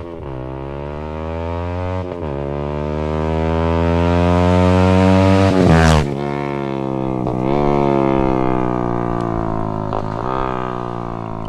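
Yamaha XSR 155's 155 cc single-cylinder engine through an SC Project CRT 470mm aftermarket exhaust, accelerating hard with upshifts about the start and about 2 s in. The rising note is loudest as the bike passes just before 6 s, then the pitch drops sharply and the engine runs on at a lower, dipping note as it moves away.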